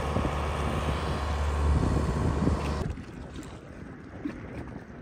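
A steady, low engine rumble that cuts off suddenly about three seconds in, leaving quieter wind noise on the microphone over open water.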